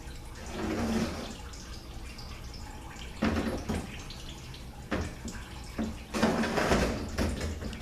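Cordless power ratchet spinning out the valve body bolts of a Mercedes 722.6 automatic transmission, in four short bursts.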